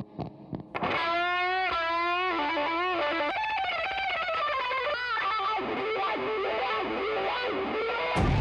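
Rock music led by a distorted electric guitar. It starts about a second in with a few bent, sliding notes and goes on as a steady riff, with a louder hit near the end.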